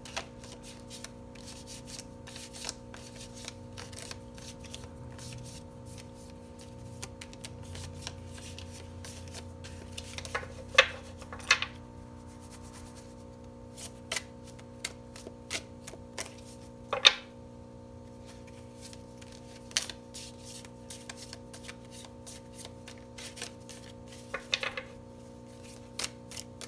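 Tarot deck being shuffled by hand: quick rustles and taps of cards slipping against each other, with a few louder snaps scattered through. A faint steady hum runs underneath.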